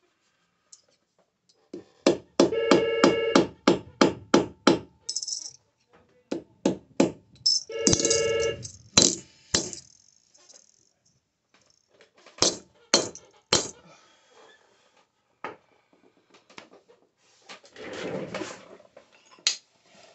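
Hammer blows on sterling silver over a steel anvil or block in quick runs of about four strikes a second, some blows ringing with a clear metallic tone, with pauses between the runs.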